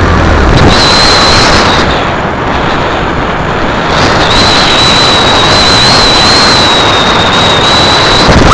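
Loud, distorted rushing noise of wind buffeting a small onboard camera's microphone, with a thin, steady high-pitched whine through most of it. A low motor hum fades out in the first second.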